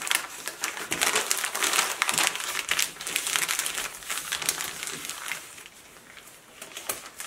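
Stiff white wrapping paper crinkling and rustling as it is folded around a package of ground pork sausage. It is busiest over the first five seconds and quieter near the end.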